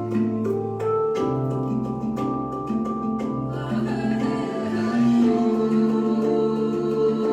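Music: slow, sustained organ-like chords that change every second or two, with singing.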